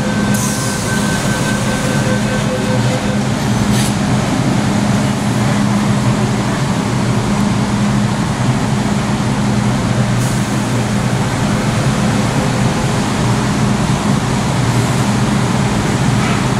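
A stationary MTR M-Train standing at an underground platform with its doors open, giving a steady low hum. A faint thin tone sounds for the first three seconds, and a few brief knocks come through.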